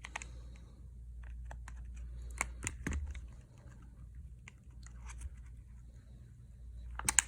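Scattered sharp clicks and crackles from a plastic pry card working under a Samsung Galaxy S20 Ultra's back glass, with the adhesive giving way as the glass is lifted by a suction cup. There is a cluster of louder clicks about two and a half seconds in and a pair near the end, over a steady low hum.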